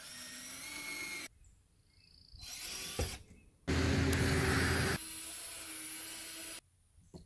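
Handheld power drill driving screws into a plywood panel over a window, in three runs: a short one at the start, a brief one about two and a half seconds in, and a longer one from about four seconds in that is loudest at first and then eases off before stopping.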